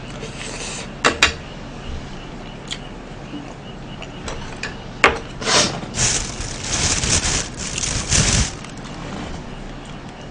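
Table sounds of eating: a few sharp clicks of chopsticks against dishes, then, about halfway through, a couple of seconds of rustling and scraping as leafy greens are handled for a wrap.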